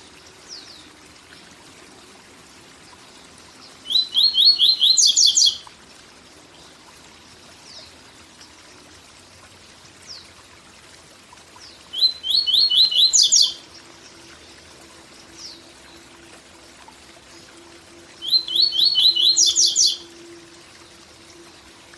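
Papa-capim seedeater singing its 'tui tui zel zel' song three times with pauses of several seconds between. Each phrase is about a second and a half of quick repeated notes that climb higher at the end, over the steady rush of a waterfall.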